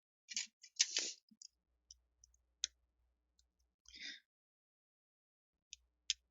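Small sharp clicks and brief scrapes of a precision screwdriver and tiny screws being taken out of an iPhone 7. There is a cluster of them about a second in, then single clicks around two and a half, four and six seconds.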